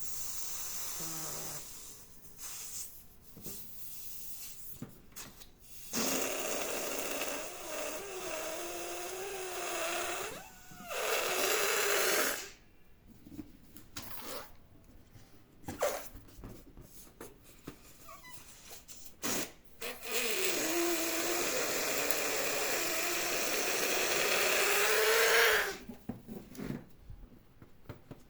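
Air rushing out of a balloon: a hiss with a wavering squeal, in three long stretches of several seconds, with a few short clicks in the quieter gaps between them.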